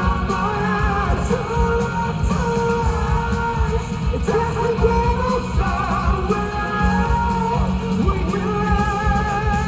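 Live band playing a pop-rock song through a hall's PA, with a male singer holding long notes with vibrato over steady drums and bass.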